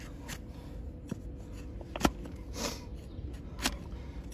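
Hoof-trimming tools cutting and scraping a donkey's hoof horn: a few sharp snips and a short scrape, the loudest a little over two seconds in, as diseased hoof is pared away.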